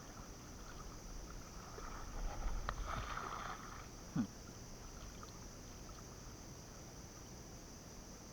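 Water splashing and sloshing, loudest from about two to three and a half seconds in, with a sharp click in the middle and a short rising chirp just after.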